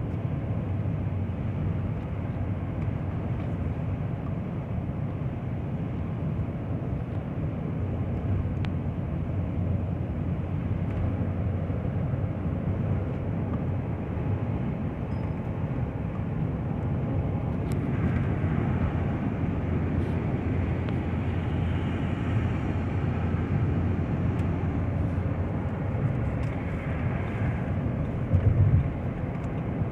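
Car being driven on the road: steady engine and road rumble, with a brief louder bump near the end.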